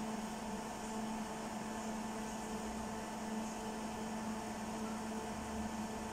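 Steady electrical hum of a ProtoTrak SM knee milling machine, holding a few constant tones while the knee is lowered to its set height, with no cutting.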